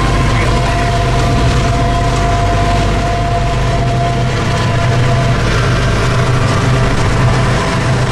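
Heavy engine running steadily with a low rumble and a faint, steady high whine over it.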